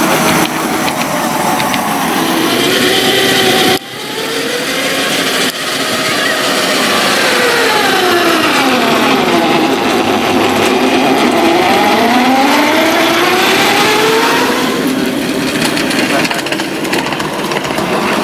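Ride-on 5-inch gauge miniature locomotives running on garden track, heard in several short takes. In the longest take the locomotive's drive note falls over a few seconds and then rises again.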